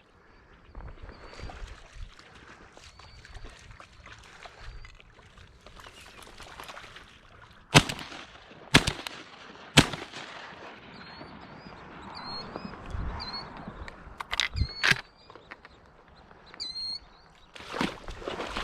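Three sharp shotgun blasts about a second apart near the middle, then two more quick cracks a few seconds later, over a low rustling background with short, high repeated chirps.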